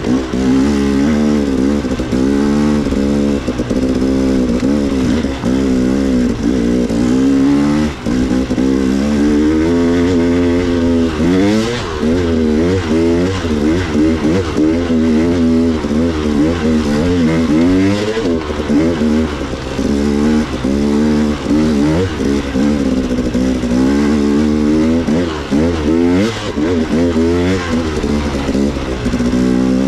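A vehicle engine under way, its pitch climbing and dropping every second or so as the throttle is worked up and down, over a steady low drone.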